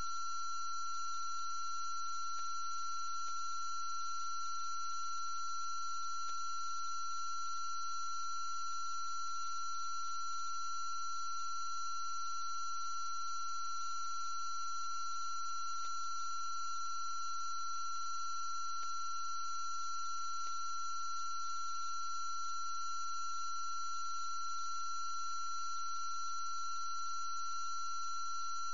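A steady electronic tone, several high pitches held without any change, over faint hiss and a low hum, with a few faint clicks.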